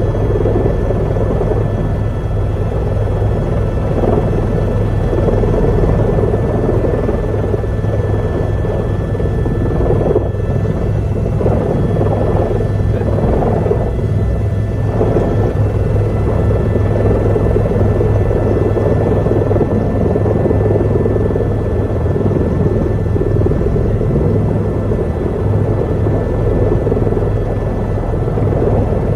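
Helicopter turbine engine and rotor running steadily, heard from inside the cabin: a constant low rotor drone with a thin steady whine above it.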